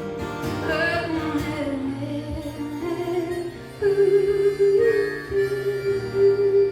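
Closing bars of a live acoustic song with no words sung: wavering melodic lines over the accompaniment, then a long held note that begins loudly about four seconds in.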